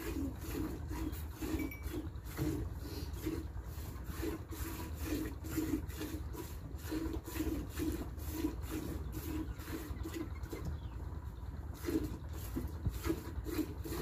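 A cow being milked by hand: streams of milk squirted in a steady rhythm, about three a second, into a bowl already holding milk, over a steady low rumble.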